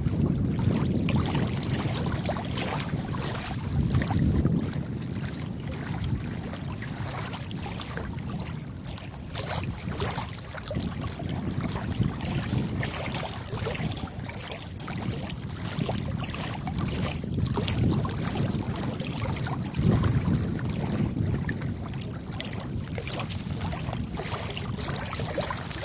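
Water splashing and lapping, with a low rumble that swells and fades every few seconds.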